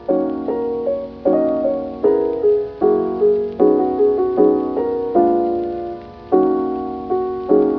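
Background music: soft piano chords struck one after another, each ringing and fading before the next.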